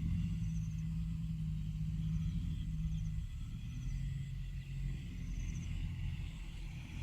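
Diesel engine of heavy earthmoving machinery (excavator or dump truck) running steadily, its tone dropping about three seconds in.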